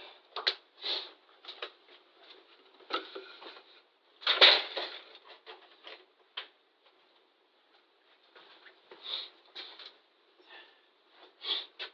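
Small items being handled and put away by hand: scattered knocks, clicks and rustles at irregular times, the loudest cluster about four seconds in.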